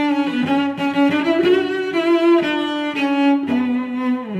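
Background music of bowed strings playing held notes that move from pitch to pitch, with a falling slide near the end.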